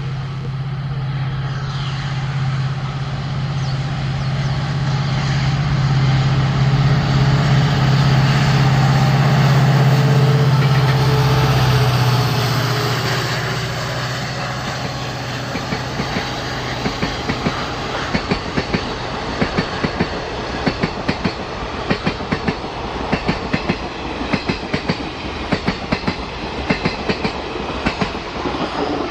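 EMD WDG-4 diesel locomotive's two-stroke engine drones as it approaches and passes, loudest about ten seconds in and dying away soon after. Its coaches then roll by with a rapid clickety-clack of wheels over rail joints, in quick clusters of clicks.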